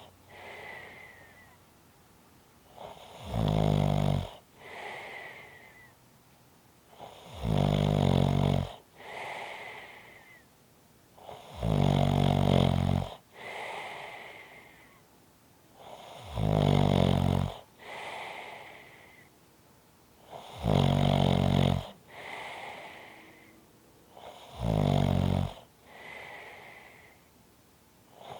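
Snoring in a slow, regular rhythm: six loud, low snores on the in-breath, about every four seconds. Each is followed by a softer out-breath with a thin whistle.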